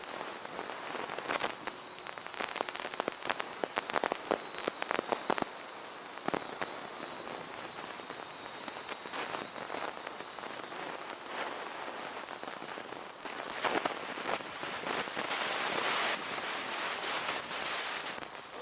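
Small toy quadcopter's motors and propellers giving a thin, steady high whine, with many scattered crackling clicks over it and a louder rushing hiss near the end.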